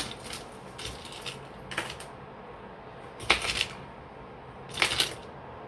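Small jewellery pieces clicking and rattling as they are handled, in several short bursts, loudest about three and five seconds in.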